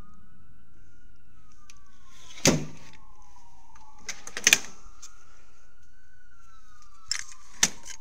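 Loud metallic clanks from handling a Craftsman tool chest full of tools: one about two and a half seconds in, another around four and a half seconds, and two close together near the end. Under them a siren wails slowly up and down in the background.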